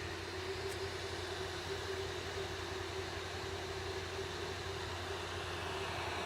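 Hot air rework station blowing: a steady airy hiss with a low hum and a faint steady tone underneath.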